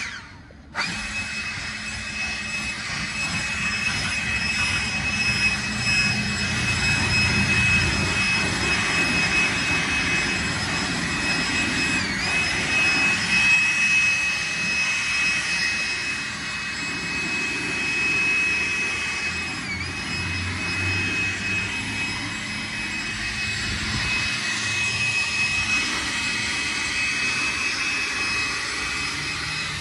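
Cordless Ryobi leaf blower running with a steady high whine and rush of air, blowing rinse water off a car's paint. It cuts out for a moment right at the start, and its pitch dips briefly twice later on.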